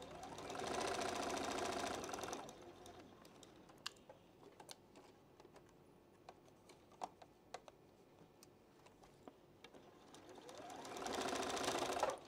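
Juki sewing machine stitching a quarter-inch seam through patchwork fabric in two runs. The first lasts about two seconds from the start; the second speeds up near the end. A few light clicks come in the quieter stretch between.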